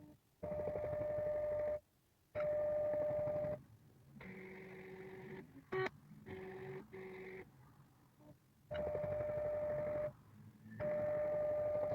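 NEMA23 stepper motors driving the CNC's ball-screw axes in a series of short moves, each a steady whine with overtones that starts and stops abruptly. Most moves sit at one higher pitch; a group in the middle runs at a lower pitch.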